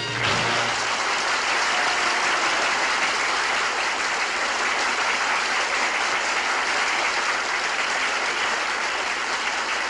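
Audience applauding steadily after a song, a dense even clapping that runs on without letting up; a last low note from the band dies away in the first second.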